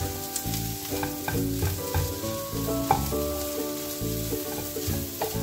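Wooden spatula stirring and scraping fried squid through onion masala in a nonstick frying pan, with many short scrapes over the hiss of the masala sizzling in oil.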